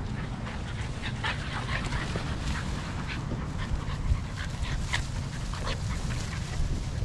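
American Bully puppies yipping and whimpering in short, scattered squeaks as they play-fight, over a steady low rumble.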